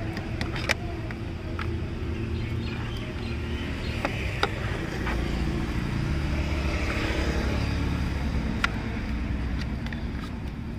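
Low rumble of a motor vehicle running nearby, growing louder around the middle and then easing off. Over it come a few sharp clicks and knocks as a plastic wiring connector is worked onto an engine control unit.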